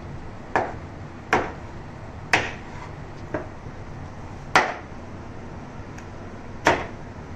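A large curved knife chopping through broiler chicken breast onto a wooden chopping board: six sharp chops at uneven intervals, the third and fifth the loudest.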